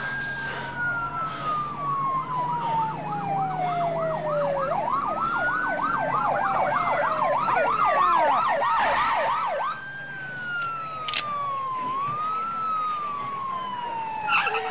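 Police car sirens outside. One siren wails in slow rises and falls, while a second yelps in fast sweeps of about four a second. The yelping cuts off about ten seconds in and the wail carries on.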